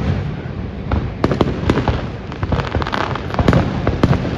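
Fireworks display: aerial shells bursting in an irregular string of sharp bangs and crackles, thickest about a second and a half in and again near three seconds, over a steady low rumble.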